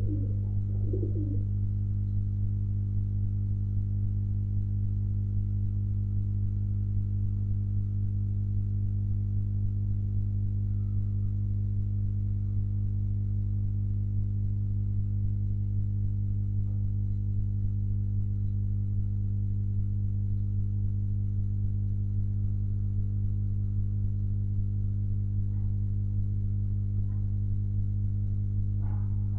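A steady low electrical hum runs throughout. Domestic pigeons coo softly a few times, just at the start and again near the end.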